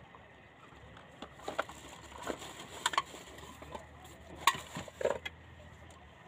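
A string of sharp, irregular clicks and knocks close to the microphone, about a dozen in four seconds, the loudest about four and a half seconds in, over a faint steady low hum.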